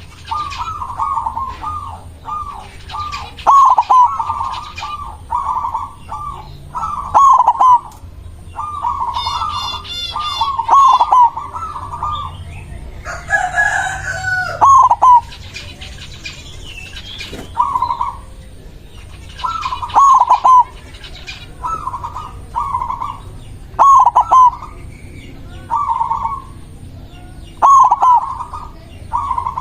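White zebra dove cooing over and over in short repeated phrases, loud and close. A rooster crows once about halfway through, and a small bird chirps briefly just before it.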